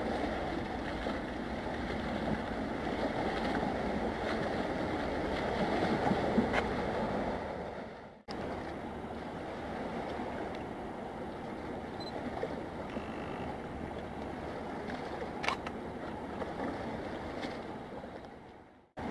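Steady outdoor wash of wind and water noise with a low rumble under it, cutting out abruptly about eight seconds in and picking up again at once.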